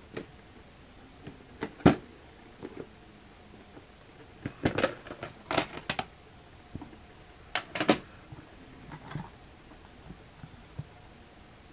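Clear plastic VHS clamshell case being opened and a videocassette handled and set down: a series of sharp plastic clicks and clacks. The loudest comes about two seconds in, with clusters of clicks around the middle and a little later.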